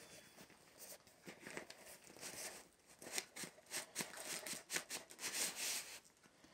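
Paper inner sleeve holding a vinyl LP sliding out of a cardboard gatefold record jacket, with quick crinkling and rustling of the paper that is busiest over the last few seconds.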